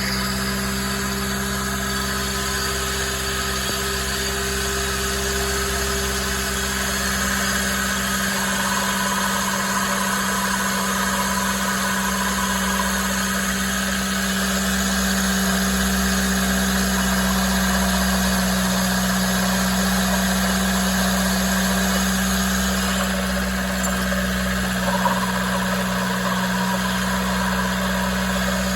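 Subaru Sambar TV2's four-cylinder engine idling with a steady hum, a strong constant tone in it. This is the abnormal noise that the owner is unsure comes from the air-conditioning compressor or the alternator.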